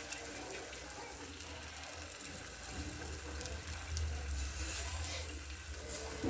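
Ginger, ajwain and jaggery in hot ghee sizzling faintly in a pan as the jaggery begins to melt, with a low hum that grows louder about halfway through.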